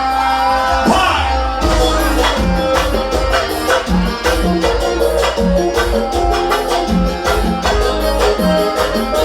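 Loud music with a steady beat and heavy bass, with no singing.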